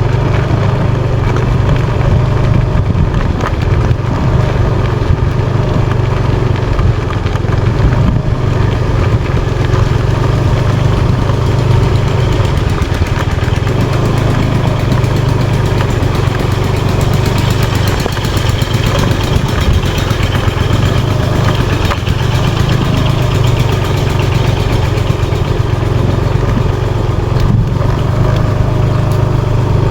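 Motorbike engine running at a steady speed while riding along a road, an even, unbroken engine drone.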